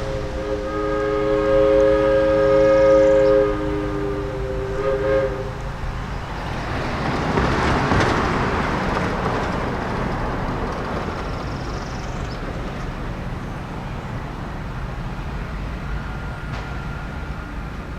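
A diesel locomotive's air horn sounds a chord in a long blast, then a shorter, weaker one ending about five seconds in. The train then passes, with engine and rail noise swelling to a peak a few seconds later and slowly dying away.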